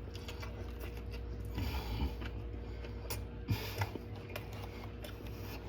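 Chewing a mouthful of burger close to the microphone: faint, irregular mouth clicks over a steady low hum.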